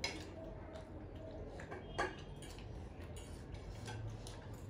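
Light clicks and clinks of cutlery against dishes while eating, with two sharper clinks: one at the start and one about two seconds in.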